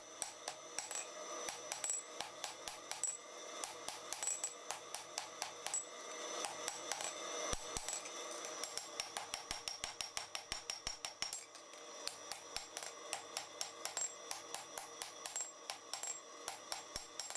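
Hand hammer striking a red-hot steel bar on an anvil in a quick, even rhythm, each blow leaving a bright metallic ring from the anvil, as the jaw of a pair of wolf jaw tongs is forged.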